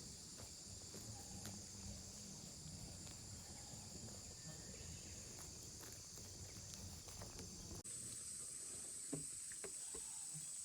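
Steady high-pitched chorus of summer insects, which jumps abruptly a little higher and louder about eight seconds in, with a few faint knocks and rustles underneath.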